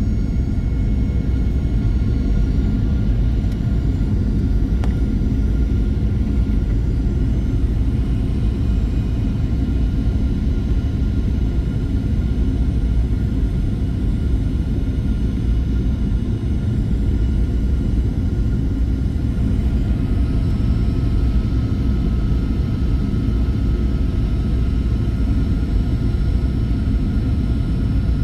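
Cabin noise of a Boeing 737-800 heard from a forward window seat: a steady, loud rumble of airflow and CFM56 engines with a faint engine whine above it. The whine shifts in pitch about two-thirds of the way through.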